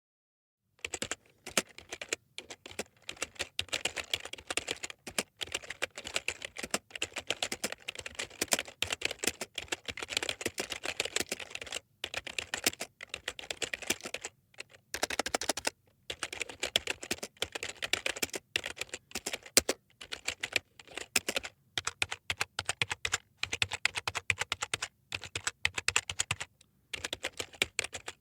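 Computer keyboard being typed on in quick, continuous bursts of key clicks, with short pauses between runs.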